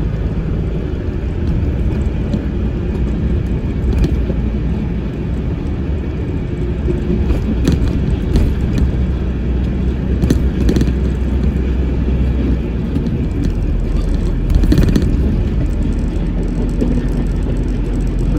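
Truck engine and road noise heard from inside the cab while driving: a steady low drone with a few short clicks. The engine note drops lower about thirteen seconds in.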